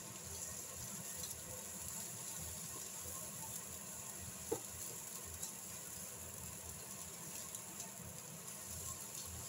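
Diced onion, carrot and peas sizzling gently in a nonstick frying pan while a spatula stirs them, a steady hiss with small crackles. One short squeak about four and a half seconds in.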